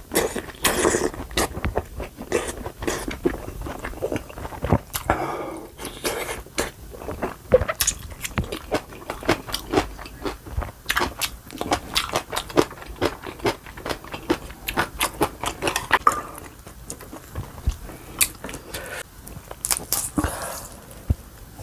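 A person chewing food close to the microphone, with many crisp crunching bites. The chewing thins out for a few seconds near the end.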